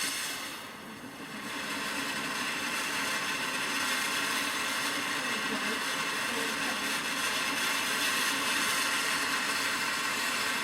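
Firework fountain hissing steadily as it sprays sparks, dipping briefly about a second in, then holding level.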